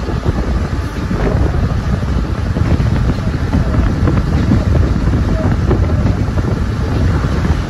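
12-series passenger coach running along the track: a steady rumble of wheels on rail, with wind noise on the microphone.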